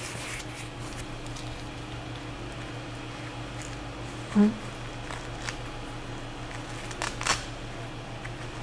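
Faint rustling and small clicks of a fabric face mask and its straps being fitted and fastened behind the head, over a steady low hum. A brief muffled vocal sound comes about four seconds in.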